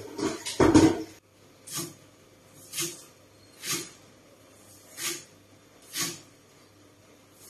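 Short animal calls repeating about once a second, after a louder burst of sound in the first second.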